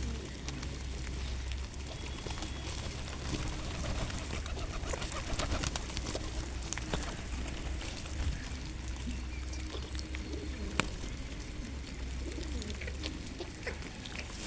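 Pigeons cooing, soft low calls repeating on and off, with a few scattered light clicks.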